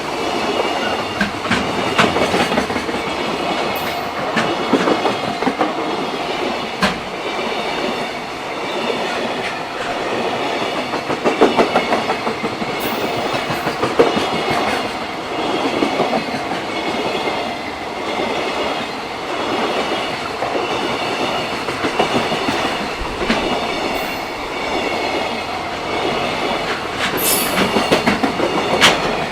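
JR freight train wagons rolling past at a level crossing, the wheels clattering over rail joints in a steady rhythm with sharp clicks and a thin high ringing above.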